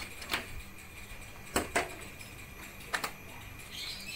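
A few sharp plastic clicks and taps as a hand handles the split air conditioner's indoor unit casing and louver, over a faint steady hum.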